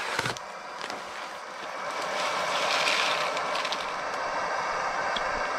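A food pouch crinkles and tears open, then a steady hiss builds as dry dirty-rice mix is poured into a small hot pot on a camp stove.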